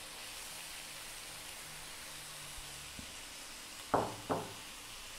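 Gentle steady sizzling from a wok of beef, carrots and tomato, quieted under a fresh heap of bean sprouts. Two short knocks come about four seconds in.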